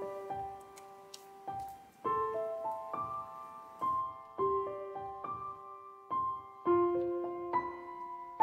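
Background music: a gentle solo piano melody, a new note or chord struck about every second and left to ring and fade.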